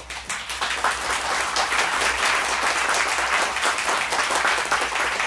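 Theatre audience applauding: a few scattered claps swell within the first second into steady, dense applause.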